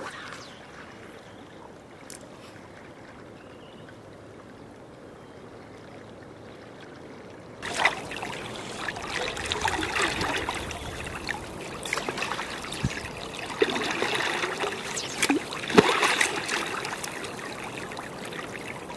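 River current rushing steadily, much louder and closer from about eight seconds in, with water splashing around a wading angler's legs. Sharp splashes and swishes come from the fly line being drawn across the surface and cast with a double-handed rod.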